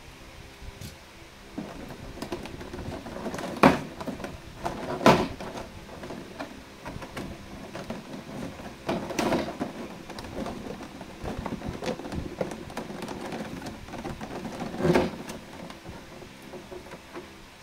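Clear plastic blister packaging being handled and shifted in its box, crinkling and crackling irregularly, with four sharper plastic cracks spread through.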